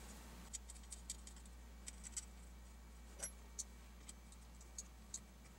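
Faint, irregular small metallic clicks and ticks of an Allen key turning the screws that fix a rail segment to an AR-15 handguard.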